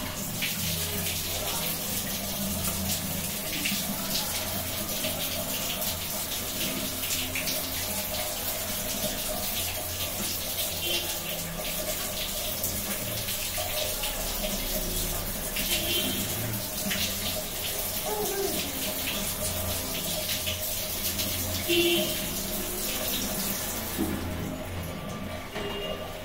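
Water running and splashing while a household sediment water filter, its cartridge clogged brown with iron, is opened and handled; the rush of water eases a couple of seconds before the end.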